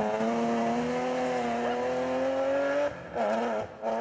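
BMW E36 3 Series rally car's engine pulling hard out of a bend, one steady, slightly rising note. About three seconds in the note drops away, then rises briefly once more before dropping again as the car moves off.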